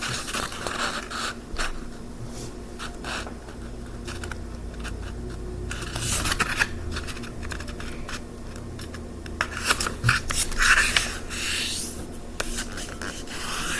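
A sheet of paper being folded in half lengthwise and creased by hand: irregular rustling, scraping and rubbing, with louder rustles about six seconds in and again around ten to eleven seconds.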